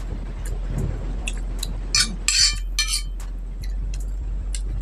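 Metal spoon clinking and scraping against a glass plate as food is scooped up. There are a few short clinks, with a cluster of louder scrapes about two to three seconds in.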